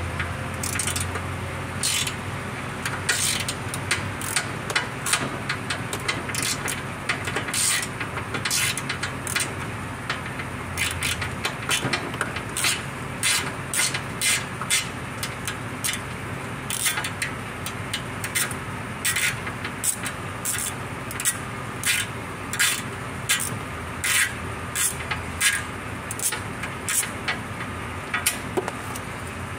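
Socket ratchet clicking in short, irregular bursts as it is swung back and forth to loosen bolts on a car's underbody transmission shield, over a steady low hum.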